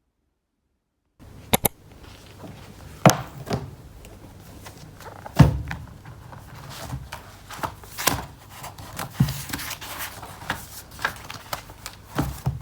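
Irregular knocks, clicks and thuds of small objects being handled, moved and set down, starting after about a second of silence, with the loudest thud about halfway through.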